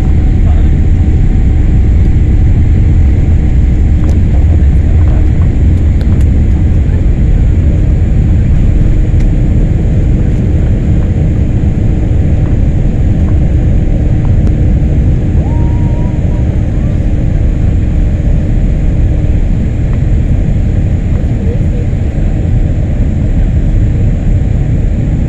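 Steady low roar of jet engines and rushing air inside the cabin of a Boeing 787 airliner, shortly after takeoff, with a steady hum running through it.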